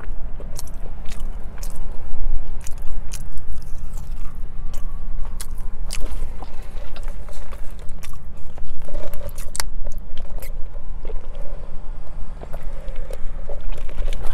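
Close-up chewing and biting of french fries, with many short sharp crunches and wet mouth clicks scattered irregularly, over a steady low hum.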